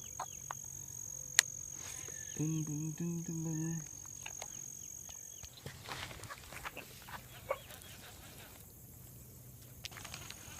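Outdoor pond ambience with an insect's steady high buzz that stops about halfway through. A single sharp click comes about a second and a half in, and a low, level-pitched voice-like call sounds in three short pieces a little later.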